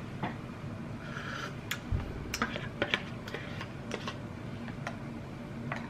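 Metal spoon clicking and scraping against a small cup: a scattered series of sharp ticks.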